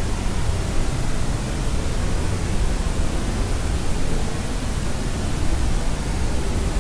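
Steady generated white noise: an even, unchanging hiss, heavier in the low end.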